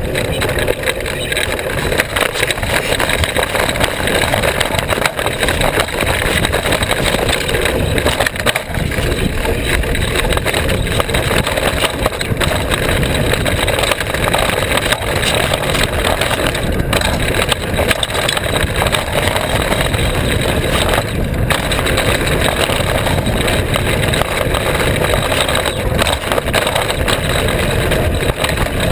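Mountain bike descending a rough dirt track, heard from a GoPro mounted on the frame: a steady loud rush of wind and tyre noise, with constant small rattles and knocks as the bike jolts over the surface.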